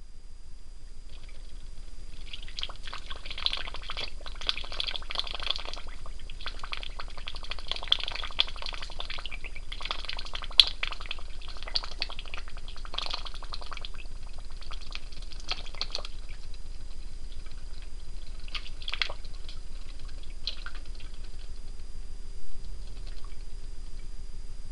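Homemade pop-pop (putt-putt) flash steam engine running, its copper exhaust pipes sputtering and crackling rapidly under water as the steam jet pulses. The crackling is dense for the first two-thirds, then thins to scattered bursts.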